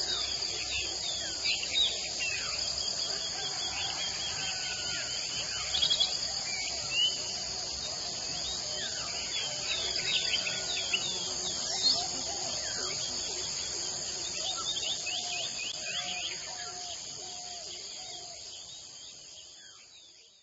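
A steady chorus of crickets trilling, with many short bird chirps over it. It fades out over the last few seconds.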